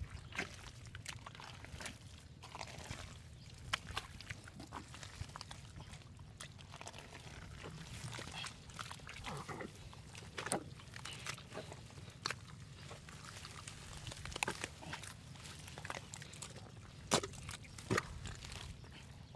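Irregular wet squelches, splats and slaps of digging through thick mud in a hole, over a steady low rumble.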